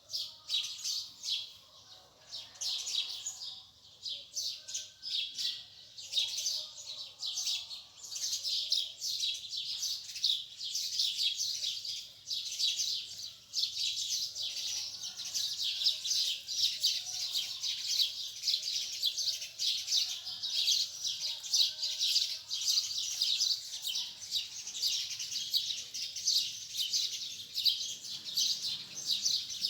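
A chorus of many small birds chirping: rapid, overlapping high chirps that are sparser at first and grow dense and continuous after several seconds, with a few lower whistled notes beneath.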